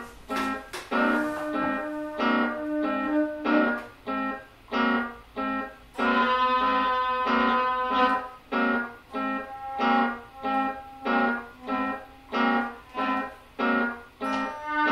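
Looped guitar layers in an improvised drone piece: a low note pulses on a steady repeat, a little under twice a second, with higher sustained notes layered over it.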